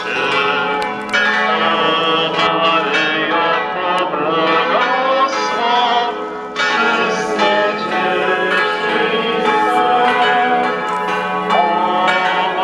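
Church bells ringing continuously, many overlapping tones sounding together.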